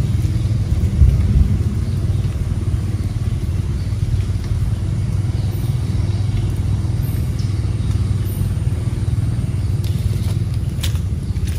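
Steady low rumble, with a few sharp clicks near the end.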